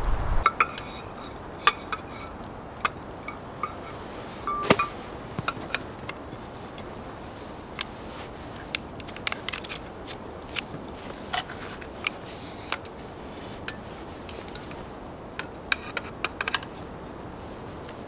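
Tent pole sections clicking and clinking together as the pole is assembled and handled. The clicks come irregularly and are sharp, and a few ring briefly.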